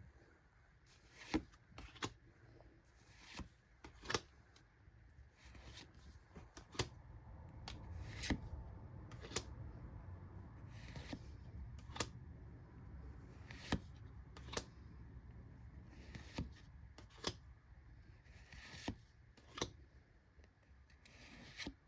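Pokémon trading cards being handled and flipped through one by one, with short crisp snaps every second or two over a faint low rumble.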